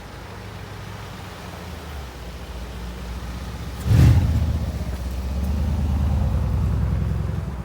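A car engine running low, then a sudden loud rev about four seconds in, followed by a few seconds of hard acceleration with a steady engine note that eases off near the end.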